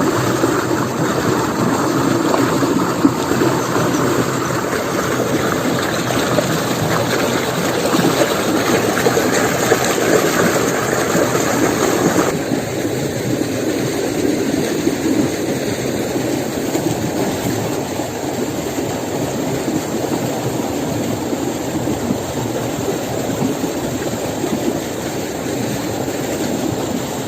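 A steady, engine-like running noise. It changes abruptly about twelve seconds in, when its higher part drops away.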